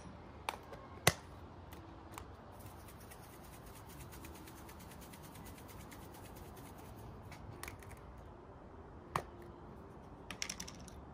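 Light clicks of metal measuring spoons against small glass spice jars as pepper and salt are spooned in, with a few seconds of fine, rapid ticking in the middle and a cluster of small clicks near the end.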